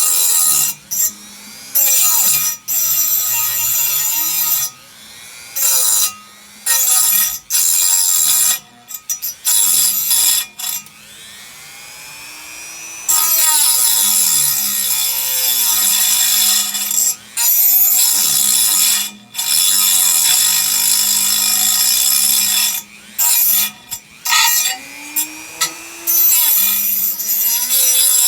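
Power tool with a diamond cutting disc cutting into a metal bar, running in repeated bursts that start and stop, its high whine shifting in pitch as it bites.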